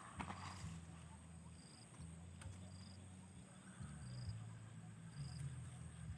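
Insects calling in the background: a short, high chirp repeating evenly about once a second, over a steady thin high-pitched buzz, with low rumbling noise beneath.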